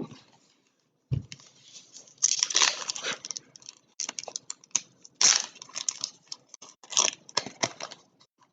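Trading card packaging being opened: a crinkly wrapper torn and crumpled in irregular bursts, after a short knock about a second in.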